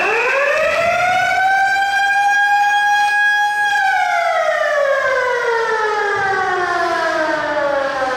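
Motor-driven siren at a hockey rink, spinning up sharply to a steady high wail over about two seconds and then winding down slowly in pitch.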